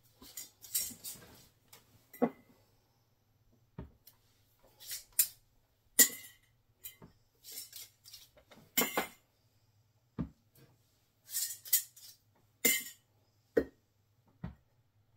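Glass canning jars and their metal lids and screw rings clinking and knocking as the rings are taken off and the jars are lifted and set back down on the table. Irregular clinks, some ringing briefly, with a few duller knocks where a jar is put down.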